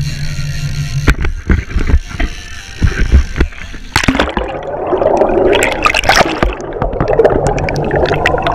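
Knocks and thumps on the GoPro as it is handled, after a steady low hum. About four seconds in the camera goes under the sea surface: muffled rushing and gurgling water around the camera housing, with fizzing crackle.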